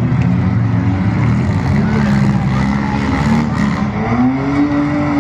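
Demolition derby car engines running loud, with one engine revving up, rising in pitch, about four seconds in.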